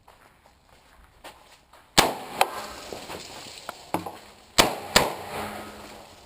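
Three loud rifle shots from a DPMS LR-308 in .308 Winchester, about two seconds in and then two close together near the end, each followed by a long echo. Two lighter sharp knocks fall between them.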